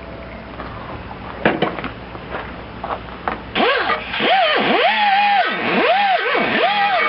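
Die grinder with a Scotch-Brite wheel scouring rust off a small engine's flywheel. It starts a little past halfway in, and its whine swoops down in pitch and back up about four times over a gritty scrubbing noise, after a few light handling clicks.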